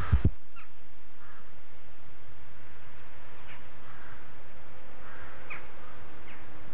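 Crows cawing now and then, a few short falling calls spaced a second or more apart, over a steady hiss. A low double thump right at the start.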